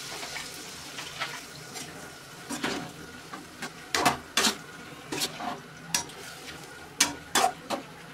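Slotted metal spatula scraping and knocking against a non-stick pan as pork intestine and potato pieces are stirred, in irregular strokes, over a faint sizzle.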